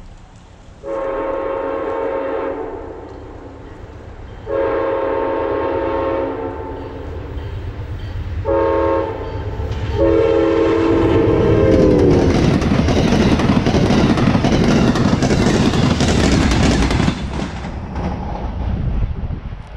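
Amtrak Downeaster passenger train sounding its horn for a grade crossing in the long-long-short-long pattern, the last blast dropping in pitch as the locomotive passes. The rumble and clatter of the train going by follows, then fades.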